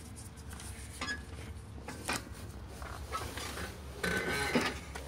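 Scattered small clicks, taps and rustles of gloved hands handling the spark plug wire and boot on the engine, with a louder burst of scraping and clicking about four seconds in.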